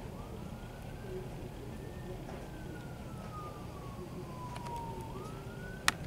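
Emergency vehicle siren wailing in slow sweeps: it rises over the first two seconds, falls slowly for about three seconds, then starts to rise again near the end. Beneath it is a steady low rumble, and a sharp click sounds just before the end.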